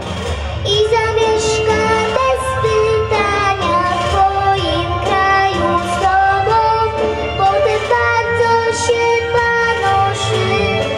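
A young girl singing a song into a microphone, amplified through a PA speaker, over instrumental backing music.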